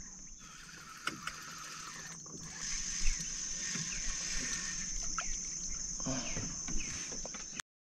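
Steady high-pitched insect buzz from the riverside trees, growing a little louder about two and a half seconds in, with a few faint clicks and knocks. The sound cuts out briefly near the end.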